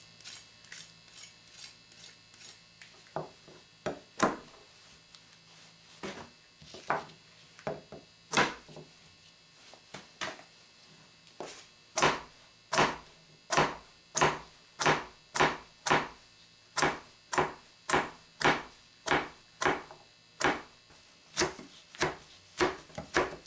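Large kitchen knife chopping carrots on a plastic cutting board: a few scattered cuts, then a steady run of chops at about two a second from about halfway through.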